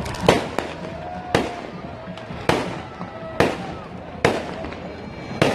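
Fireworks bursting overhead: six sharp bangs, about one a second.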